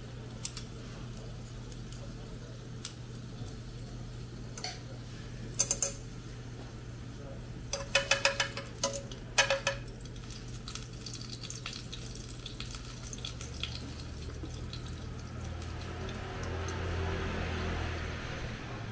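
Chopsticks clinking against a nonstick frying pan: a double tap, then a quick run of four, then two more, as a lump of fat is pushed around. Near the end a soft sizzle rises as the fat melts in the heating pan.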